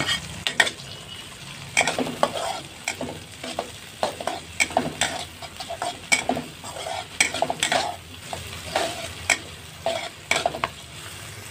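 Metal spatula scraping and clinking against a wok, in irregular strokes about one or two a second, as green chilies, tomato, garlic and shallots are stir-fried over a steady sizzle of hot oil.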